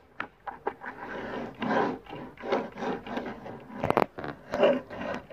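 Plastic Ice Bear vacuum toy pushed back and forth across a tabletop on the wheel under its base, making repeated short rubbing scrapes, with a couple of sharp knocks about four seconds in.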